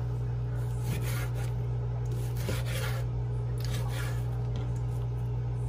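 Chef's knife sawing back and forth through raw pork on a bamboo cutting board: a series of soft rasping strokes of the blade through meat and against the wood, about one every half second to a second. A steady low hum runs underneath.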